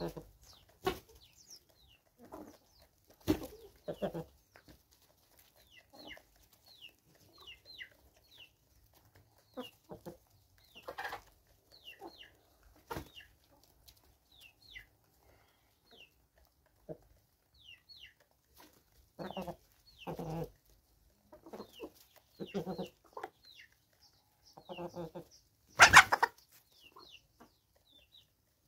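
A flock of free-range hens and roosters clucking now and then, with many short high chirps scattered throughout. There is a brief loud sound about 26 s in.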